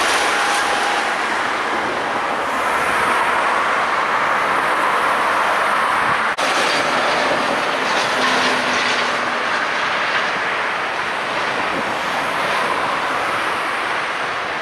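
Train running on the tracks through a station: a steady rolling rumble of wheels on rails, with one brief dropout about six seconds in.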